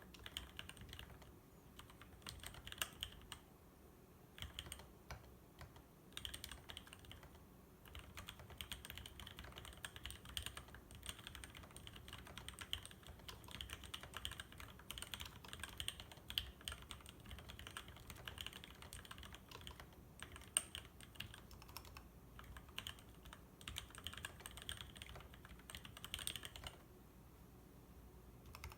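Typing on a VE.A ergonomic keyboard with vintage Cherry MX Black linear switches (62 g) and DSA and SA keycaps: a fast run of keystroke clacks with a few short pauses, the longest near the end.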